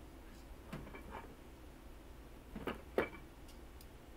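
A few light clicks and knocks of small objects being handled, the sharpest about three seconds in.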